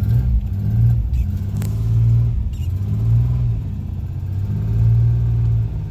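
1984 Chevy Citation X11's 2.8-litre V6 running just after a cold start, kept alive on the gas pedal because it has no choke. It rises and falls in speed several times, swelling about one, two, three and five seconds in. The exhaust is loud through the original muffler, with no leaks.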